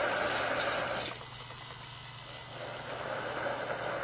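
Battery-powered toy train running on plastic track, a whirring rattle that drops away about a second in and swells again near the end.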